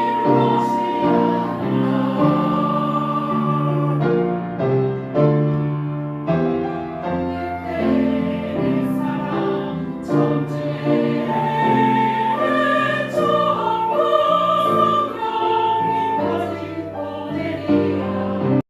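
A song with choral or operatic singing over instrumental accompaniment, with long held notes.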